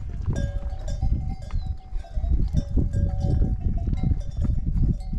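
Bells on a flock of sheep and goats on the move, clanking and ringing irregularly over a deep rumbling noise.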